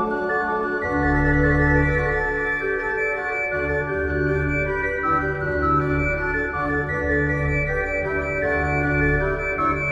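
Organ music: sustained chords held over low bass notes that change about once a second.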